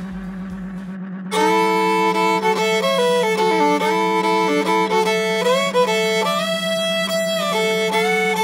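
A fiddle playing a country tune that starts suddenly about a second in, over a steady low hum.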